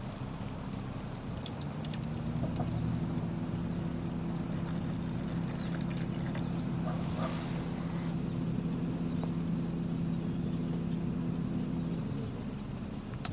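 Steady low hum of an engine running, swelling about two seconds in and easing off near the end, with a few faint ticks over it.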